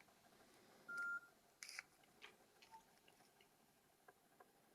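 A Nokia 6600 slide phone giving one short single-tone key beep about a second in, followed by a brief sharp click and a few faint taps of its buttons being pressed.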